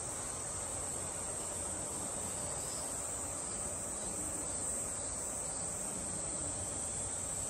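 A steady, unbroken high-pitched drone of insects singing outdoors, over a constant low hiss.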